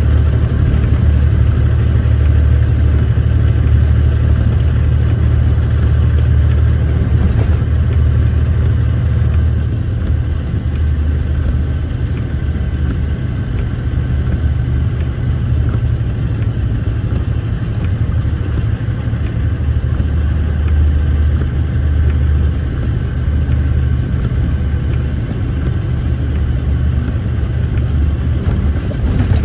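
Off-highway logging truck's diesel engine running under way, heard inside the cab as a loud, steady low drone with cab and road noise over it.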